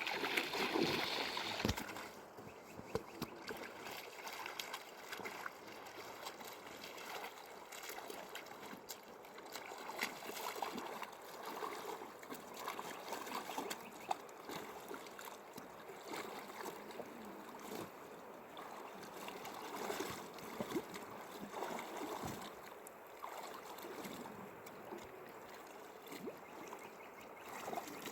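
River water flowing and splashing, with a louder splash in the first second or two and scattered knocks.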